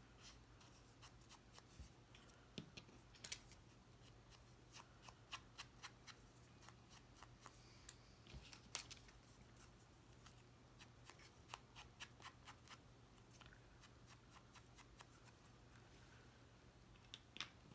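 Faint, irregular scraping and light tapping of an ink pad being rubbed along the edges of cardstock paper pieces, over a low steady room hum.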